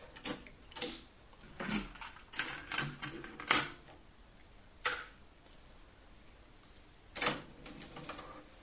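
Hitachi D-850 cassette deck being handled: the eject key pressed and the cassette door opening, a cassette taken out and another put in with plastic clacks, and the door shut, as a string of separate mechanical clicks, the loudest about three and a half seconds in. About seven seconds in the play key latches down with a clunk.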